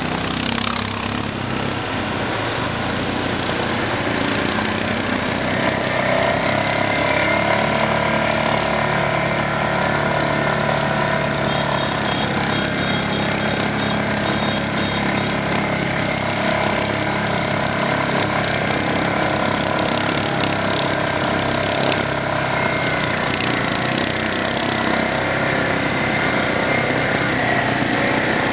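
Quad bike (ATV) engines running steadily under load while ploughing through a river, with water splashing and rushing around the machines.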